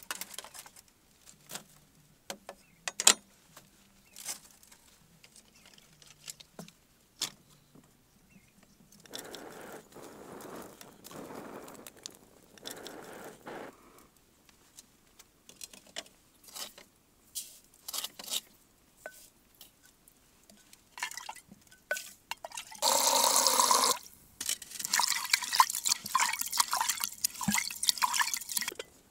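Scattered light knocks and clicks of clay pots and wood being handled, then water poured into a clay pot: one short loud gush, followed by several seconds of choppy splashing.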